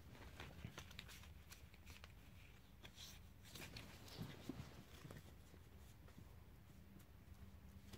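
Faint ticks and flicks of a handful of Dinosaur King trading cards being sorted by hand, card against card, thinning out after about five seconds.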